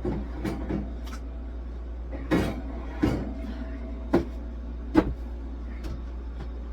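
Household items and containers knocked and set down one after another, about seven separate clunks, the loudest about five seconds in, over a steady low hum.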